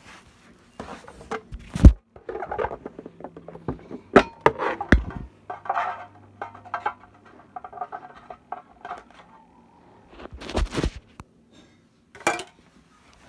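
Handling noise: a run of irregular knocks, clinks and rustles as a metal Pokémon card tin and cards are moved about, with a sharp thump about two seconds in.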